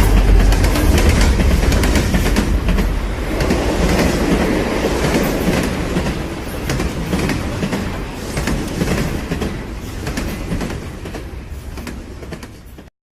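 A loud rumbling, rattling noise with many rapid clicks, slowly fading and cutting off suddenly near the end.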